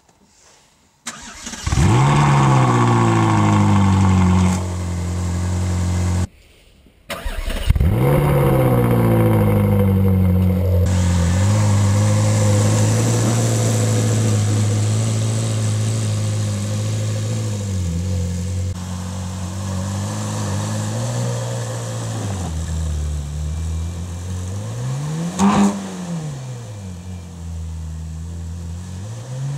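Ferrari 458 Spider's 4.5-litre V8 started twice: it catches with a rev flare, runs at a fast idle and is switched off, then is restarted. After the second start it settles from a high idle toward a lower one, with a couple of quick throttle blips near the end.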